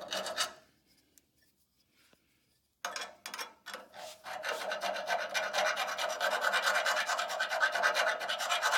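Steel door hinge being rasped down to bare metal so a weld will stick. A short scrape comes at the start, then a pause, a few separate strokes about three seconds in, and continuous rapid rasping from about four seconds on.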